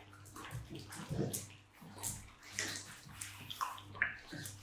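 A dog's wet mouth sounds, licking and smacking, coming as irregular short strokes, over a faint steady low hum.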